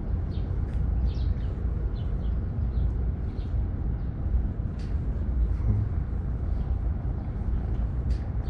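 Outdoor city ambience: a steady low rumble of traffic with short, high bird chirps scattered through.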